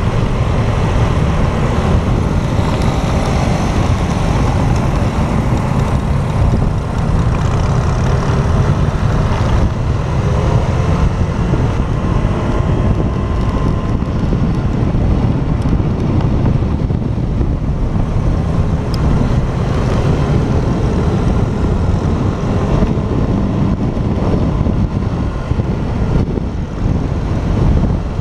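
Motorcycle on the move: its engine running steadily under heavy wind buffeting on the helmet camera's microphone.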